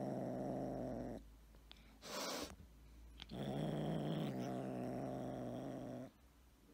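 A tabby kitten growling low and steadily while holding food in its mouth: a possessive growl guarding its food. There are two long growls with a short hiss between them.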